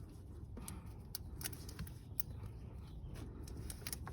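Faint, scattered clicks and light knocks of hand work on a car's engine bay, over a low steady background rumble.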